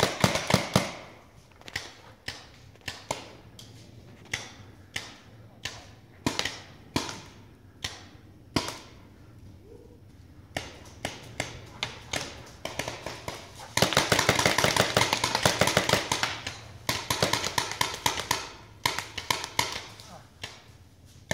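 Paintball markers firing: single pops at uneven intervals, with rapid strings of shots about a second in and again a little past the middle.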